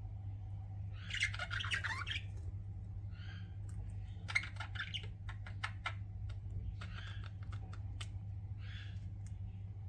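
Pet budgerigars chirping and chattering: a dense burst of warbling chatter about a second in, then quick clicks and short chirps repeating through the rest. A steady low hum runs underneath.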